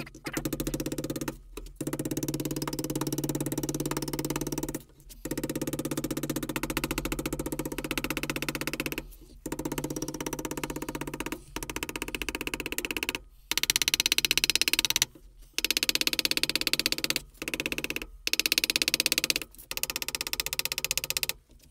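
Rapid blows of a soft-faced mallet bending the edge of an aluminium fuel-tank end over a wooden form block. The blows come in quick runs of a few seconds, broken by short pauses.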